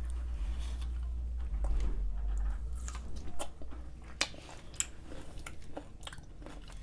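Biting into and chewing a sauced kosher dill pickle, with scattered crisp crunching clicks from about three seconds in. A low hum runs underneath and fades about two and a half seconds in.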